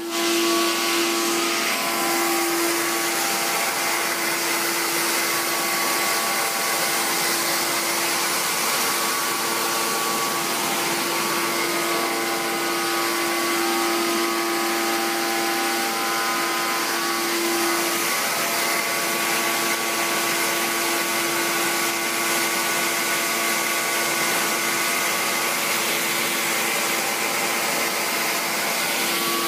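Pneumatic vacuum conveyor for plastic resin running steadily: a loud, even rush of air with a steady hum under it as it draws resin into a silo.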